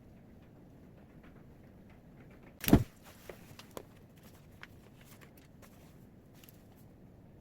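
A single loud, short knock, like a small hard object set down or bumped on a work table, about two and a half seconds in, followed by a few faint small clicks and taps.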